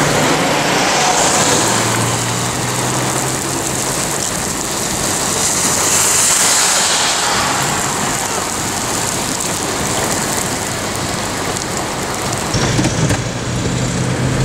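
Heavy rain pelting a car's roof and windshield, heard from inside the car as a steady hiss, with a low hum from the car's running engine underneath.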